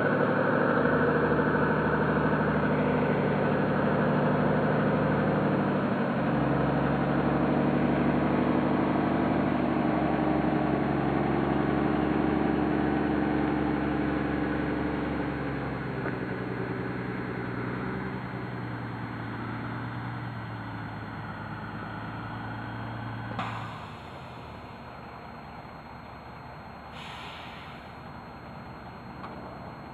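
A motor or engine running steadily with a low hum, its pitch stepping down a few times. It fades out after a sharp click about 23 s in, and a short hiss follows near the end.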